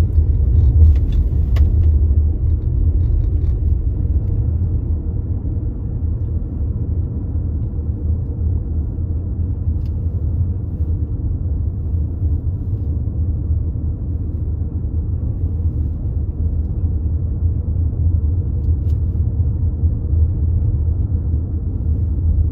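Steady low rumble of a car driving at moderate speed, engine and tyre noise heard from inside the cabin.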